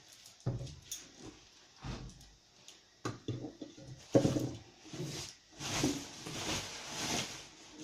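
Plastic cleaning-product bottles being handled and set down on a surface: scattered knocks and clicks, with some rustling in the middle.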